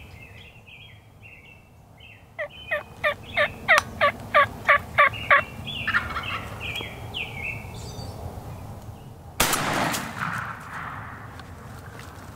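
A run of about ten wild turkey yelps, evenly spaced at about three a second, then a few short calls, followed about nine seconds in by a single 12-gauge-style shotgun blast with a short echoing tail: the shot at a gobbler about 55 yards out.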